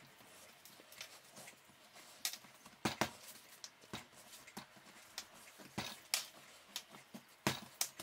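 Hands kneading and patting a ball of egg dough on a countertop: irregular soft slaps and knocks of palms on dough and counter.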